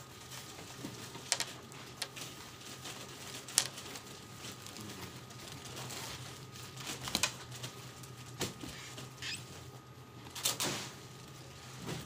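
Clothes being handled and unfolded on a table: fabric rustling and flapping, with a few short sharp knocks or clicks and a steady faint hum behind.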